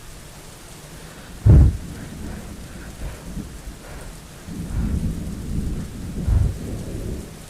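Steady rain with a sharp, loud thunderclap about a second and a half in, then rolling thunder rumbling through the last few seconds.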